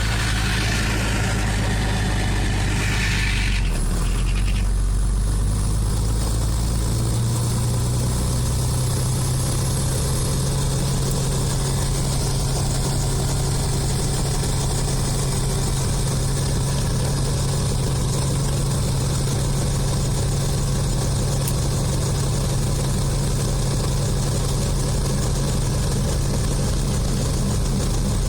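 Helicopter engine and rotor running with a steady low drone. The low hum shifts about four to eight seconds in, then holds steady.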